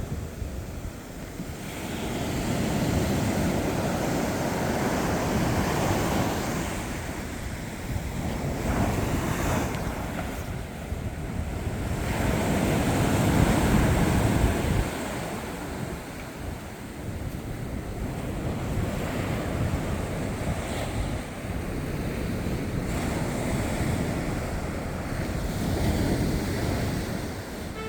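Sea waves breaking and washing onto the beach in slow surges that build and fall away, the biggest one about halfway through, with wind buffeting the microphone.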